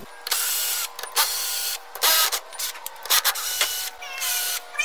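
Cordless drill-driver backing screws out of a steel cover plate, run in a series of short whirring bursts with brief pauses between them.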